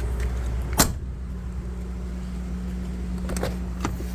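A sharp click of an RV exterior storage-compartment door or latch about a second in, with a couple of softer clicks near the end, over a steady low hum.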